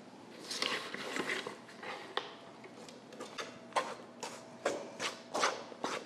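Cranberry scone dough being mixed by hand in a stainless steel bowl: soft squishing and scraping against the metal, a busy stretch about a second in, then short strokes about twice a second through the second half.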